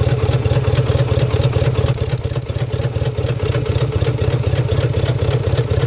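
1998 Subaru Outback's 2.5-litre EJ25 flat-four engine running with a rapid, steady crackling of clicks over it, the crackling that comes on when it is given a little gas. The owner thinks it sounds like an electrical short of some sort.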